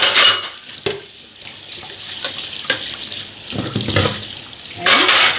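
Kitchen tap water running over dishes being rinsed in the sink, loudest in a brief gush at the start and again near the end, with a few light knocks of plates in between.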